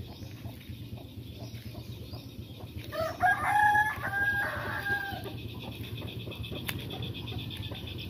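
A rooster crows once, about three seconds in, a stepped call of about two seconds.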